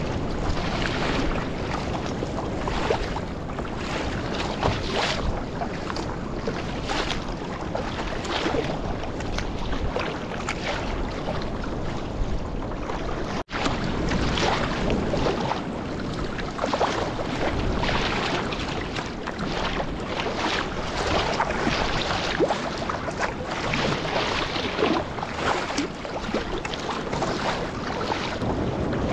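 Choppy sea splashing and slapping against a sea kayak's hull, with wind buffeting the microphone throughout.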